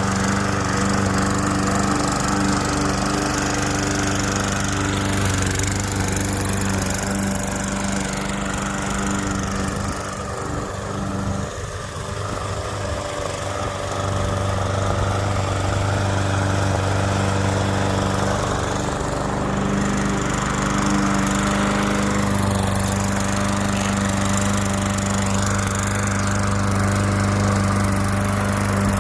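Toro gas walk-behind lawn mower running steadily while cutting grass, briefly quieter about ten seconds in before settling back to its even note.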